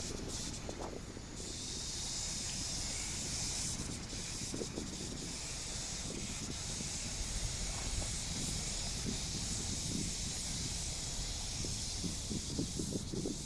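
Cicadas buzzing in a steady, high-pitched chorus that swells in about a second in and holds, over faint low background noise.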